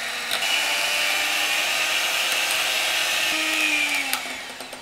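Electric hand mixer running at high speed, its beaters whipping eggs and sugar in a glass bowl toward a thick foam for a génoise sponge. The motor note shifts a little past three seconds in, and the sound dies away near the end.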